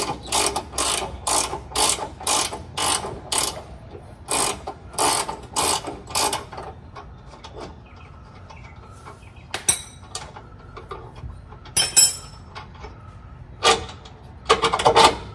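Hand ratchet wrench backing out a bolt under the car during transmission removal: quick, even ratchet strokes about three a second for the first six seconds, then a few separate clicks and knocks near the end.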